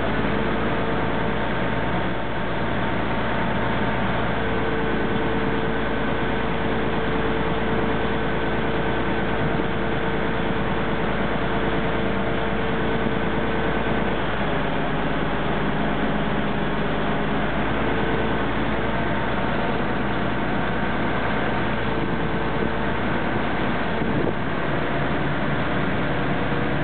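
Express riverboat's engine running steadily under way, heard from on board, with water rushing along the hull. The engine's note changes about halfway through.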